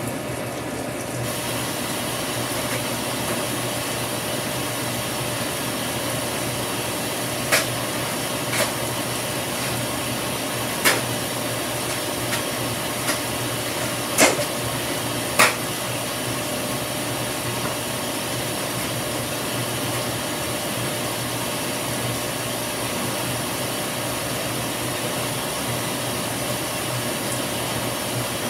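Top-loading washing machine filling with water: a steady rush of water into the tub under a low hum. A handful of sharp clicks sound roughly a third of the way through.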